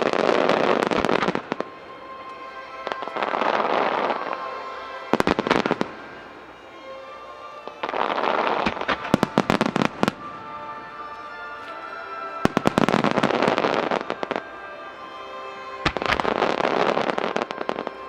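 Fireworks of a starmine barrage bursting: loud swells of dense crackling about every four seconds, each lasting a second or two, with quick clusters of sharp bangs in between. Music for the display plays underneath.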